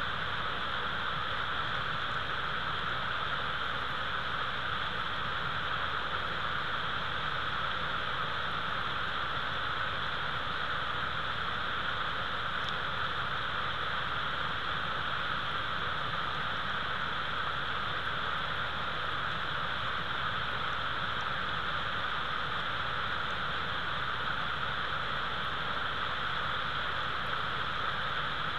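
Steady, unchanging hiss from the nest cam's outdoor microphone in a snowstorm: wind and falling snow, with no calls from the bald eagle.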